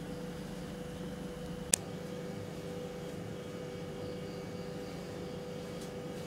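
A single sharp click of a gas stove burner being lit, over a steady hum with a faint steady tone.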